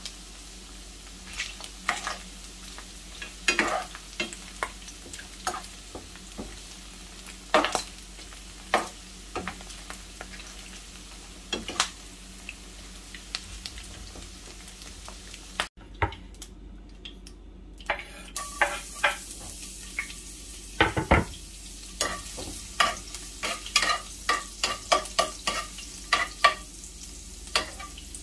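Pieces of pork sizzling in oil in a frying pan while a metal spoon stirs them, scraping and knocking against the pan at irregular intervals. After a brief break about halfway, the sizzle is brighter and the spoon strokes come quicker and closer together.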